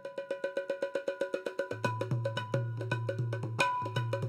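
Programme theme music starting up: fast, evenly spaced pitched percussion hits, about seven a second, joined by a steady bass line about one and a half seconds in.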